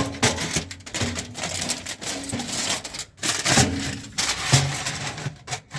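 Aluminium foil crinkling and crackling in irregular bursts as it is folded and pressed around a metal grate.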